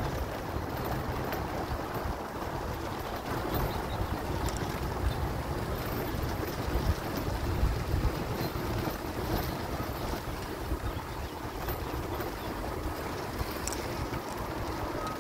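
Steady wind rumbling on the microphone, over the noise of wheelchair wheels rolling along a rough dirt path.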